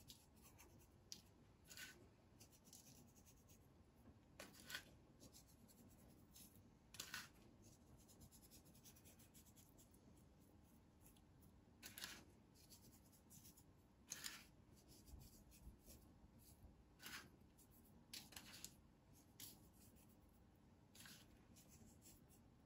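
Near silence with faint, scattered clicks and scrapes of a spoon as moistened sugar is sprinkled over the dough.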